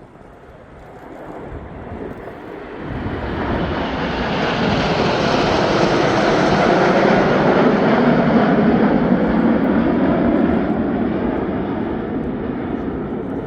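Aircraft flying past, its engine noise building to a peak about halfway through and then slowly fading away.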